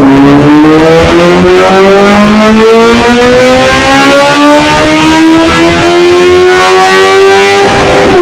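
Suzuki GSX-S750's inline-four engine through an aftermarket sport exhaust, running loud with its pitch climbing slowly and steadily.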